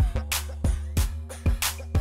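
Background music with a steady beat of about three hits a second over a sustained bass line and held notes.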